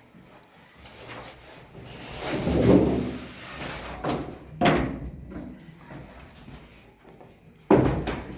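Household handling noises: a scraping slide about two seconds in, a sharp knock near the middle, and a loud bang like something being shut near the end.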